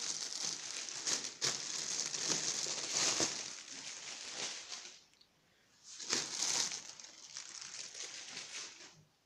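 Plastic air-cushion packing pillows and bubble wrap crinkling and rustling as they are handled, stopping for about a second near the middle before the crinkling resumes.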